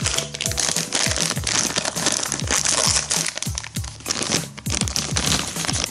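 Toy packaging crinkling and rustling continuously as it is handled, over background music with a steady thumping beat.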